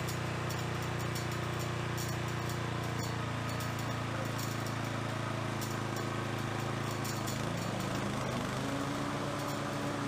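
Toro Timemaster 30-inch walk-behind mower's engine running steadily on test after its brake cable replacement, with a slight shift in pitch near the end.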